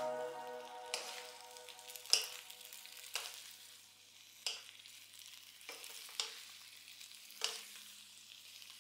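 Napa cabbage and green onions sizzling faintly in a nonstick wok as a wooden spatula tosses them. The spatula knocks against the pan about seven times, a second or so apart.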